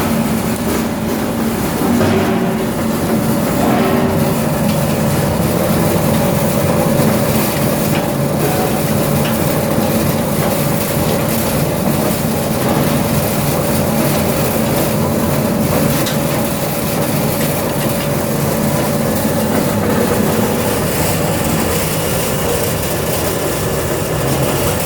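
Machinery running steadily: a continuous mechanical hum with a dense clattering rattle.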